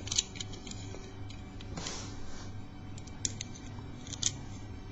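A few light, sharp clicks and taps from handling a small brass lever cabinet lock and lock picks, over a faint steady low hum.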